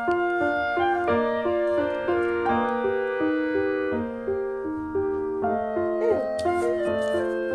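Piano music: a steady melody of single notes, a few to the second.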